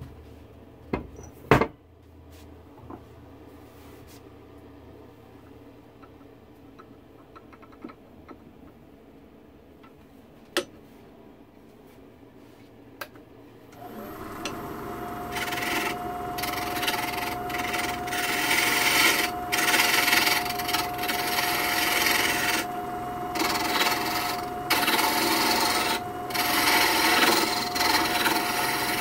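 A couple of sharp knocks near the start, then a quiet stretch; about halfway through the wood lathe comes on with a steady tone, and a small turning tool cuts the spinning wood blank with a rough, rasping scrape, broken by brief pauses as the tool lifts off.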